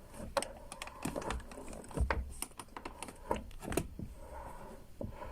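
Lada Vesta door hardware clicking and knocking irregularly as the freshly lubricated door is worked, a sound the owner is unsure is normal and suspects may mean the door latches are worn out.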